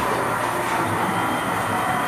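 Haas VF-3 vertical machining center's table traversing under power: a steady mechanical whine and rumble from its axis drive.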